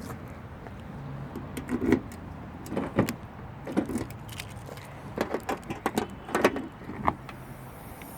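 Irregular knocks, clanks and rattles, about a dozen, some with a short ringing tone, over a steady low hum.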